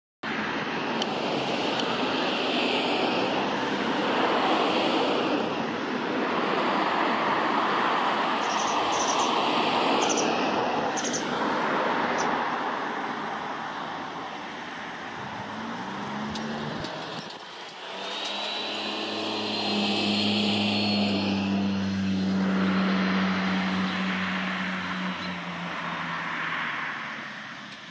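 Road traffic passing in waves: a rushing noise of cars that swells and fades. Roughly two-thirds of the way through, one vehicle's steady low engine hum joins in for several seconds.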